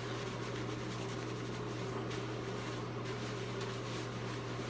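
A steady low hum runs throughout, with faint soft rubbing as fingers scrub shampoo lather into the scalp.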